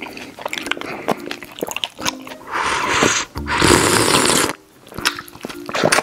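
Close-miked wet mouth sounds: clicks and smacks as jelly is licked and sucked off a sanitary pad. Two long, loud sucking slurps come around the middle.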